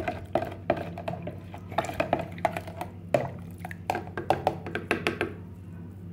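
Metal spoon stirring hot gelatin water in a plastic pitcher, clinking and scraping against its sides in quick irregular taps, stopping about five seconds in. The stirring dissolves peach gelatin powder.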